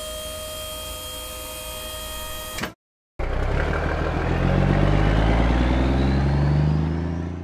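Dump truck sound effects: a steady mechanical hum as the tipper bed lowers, stopping about two and a half seconds in. After a short gap, a truck engine pulls away and accelerates, its pitch rising, then fades out at the end.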